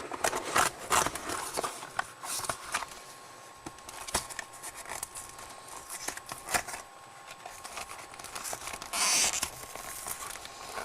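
Cardboard packaging of a trading-card hanger box being handled and torn open: scattered crinkles and clicks, with a longer tearing rasp about nine seconds in.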